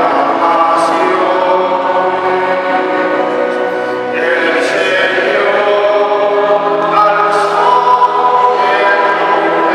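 A male cantor singing the responsorial psalm at the ambo: long, held sung phrases with a short break about four seconds in and another near the end.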